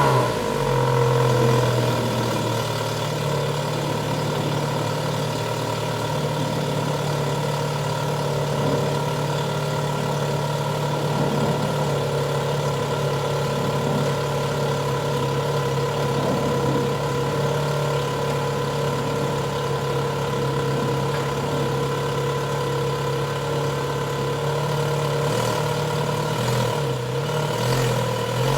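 A 2006 Lotus Exige's Toyota 2ZZ-GE four-cylinder engine idling steadily with its stock exhaust. The engine note wavers a little in the last few seconds as the revs shift.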